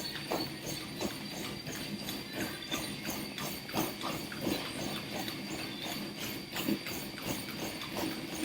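Footfalls of a person running on a treadmill, an even rhythm of about three steps a second.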